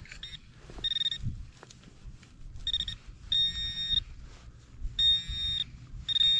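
Handheld metal-detector pinpointer sounding in about six short, high-pitched buzzing bursts, two of them longer, as it is pushed into loose soil: it is on a shallow target, which turns out to be rusty scrap metal.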